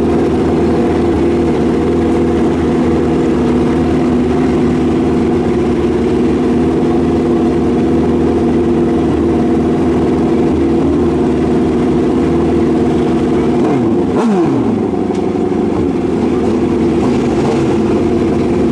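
Drag-racing motorcycle engines running loud and steady on the start line, held at an even idle. About fourteen seconds in, one engine's pitch falls briefly.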